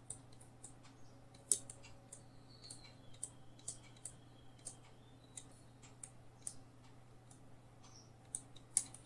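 Faint, irregular clicks and taps of a stylus on a tablet screen during handwriting: short, sharp ticks a couple of times a second, over a steady low hum.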